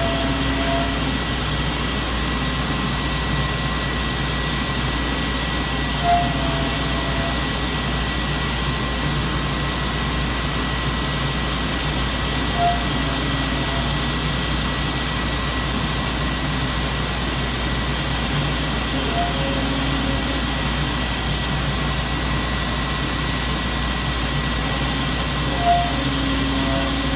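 CNC router milling ¾-inch dog holes in a plywood workbench top with a ½-inch bit, running under the steady rush of its vacuum hold-down pump and dust collection, with a thin steady high whine. A short higher note comes about every six and a half seconds.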